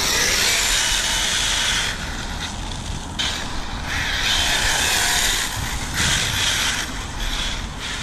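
1/8-scale Arrma Kraton EXB RC truggy running, its brushless motor whining high over the rush of its tyres, the throttle coming on and off in several bursts.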